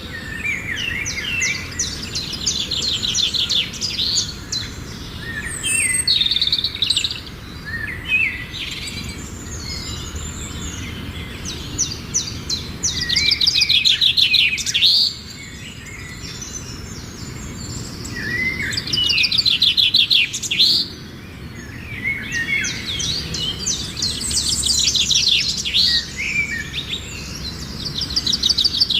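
Songbird singing bursts of fast, trilling, chirping notes, a phrase every few seconds, over a low steady background rumble.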